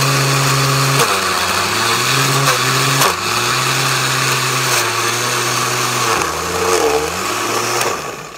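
Electric countertop blender motor running on chop mode with chunks of a cheese block in the glass jar. Its pitch sags and recovers several times as the cheese loads the blades, and it cuts off near the end.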